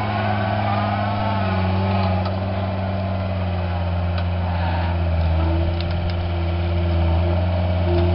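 John Deere 329D compact track loader's diesel engine running steadily under load, a low, even hum that grows slightly louder near the end, with a few brief clicks and cracks over it.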